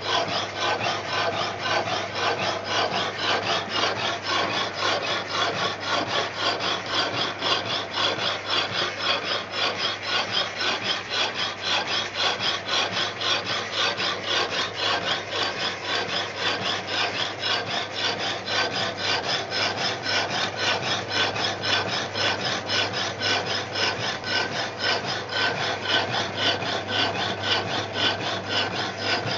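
Electric power hacksaw running, its blade sawing back and forth through a hardened steel bolt with an even rasping rhythm, stroke after stroke, over a low steady hum.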